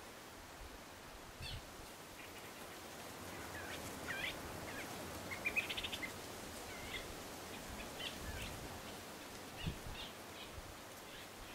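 Faint outdoor ambience with scattered short, high bird chirps over a steady hiss, and a quick run of chirps about five to six seconds in.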